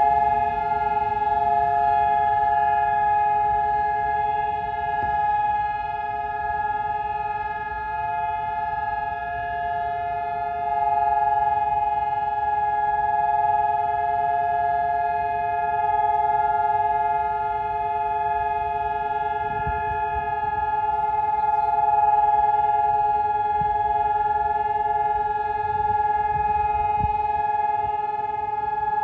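Israeli civil-defence siren sounding one steady, unwavering chord of several tones, with slight swells in loudness. It is the nationwide remembrance siren of Yom HaZikaron, signalling the standstill and moment of silence for fallen soldiers and victims of terror.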